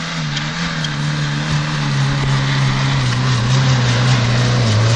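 Daihatsu Feroza's engine labouring under load as the 4x4 climbs a steep hill, its pitch sinking slowly while it grows steadily louder on its approach.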